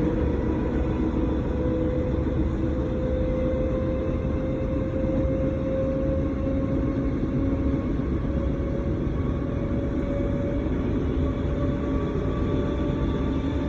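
Class 313 electric multiple unit running, heard from inside the carriage: a steady rumble with a whine from the traction motors and gearing that rises slowly in pitch as the train gathers speed.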